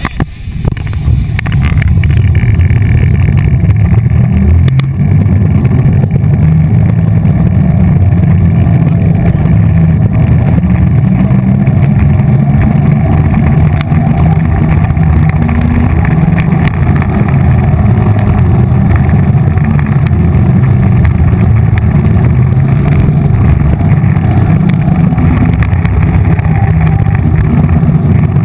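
Quad roller skate wheels rolling over a smooth rink floor: a loud, steady low rumble that builds up over the first couple of seconds as the skater gets going, then holds.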